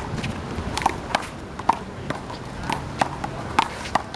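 A one-wall handball rally: a string of sharp, irregularly spaced smacks, about two a second, as the rubber ball is slapped by hands and bounces off the wall and concrete court, with players' shoe steps.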